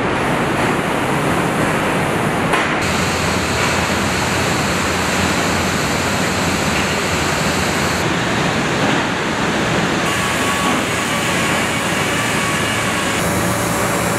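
Steady, dense background noise of a truck assembly plant floor. Its texture shifts abruptly a few times.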